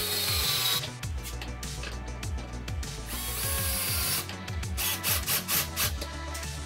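Cordless drill driving screws into plywood in two bursts of about a second each, the second about three seconds in, followed by a run of quick clicks, over background music.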